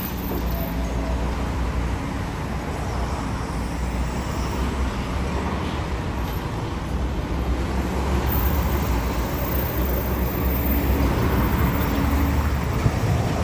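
Steady low rumble of a high-reach demolition excavator's diesel engine working, mixed with road traffic noise, getting a little louder in the second half.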